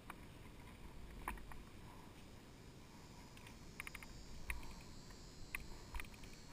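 Quiet, with a scattering of faint, sharp clicks and taps, a few of them close together a little before the middle.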